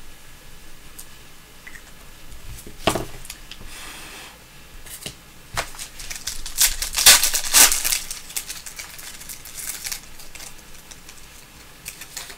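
A plastic trading-card pack wrapper being torn open and crinkled in the hands, loudest about seven seconds in, after a single knock on the table near the start.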